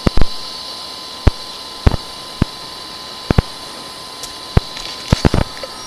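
Steady electrical hiss with a thin high whine from a sewer inspection camera system, broken by a dozen or so irregular sharp clicks and knocks.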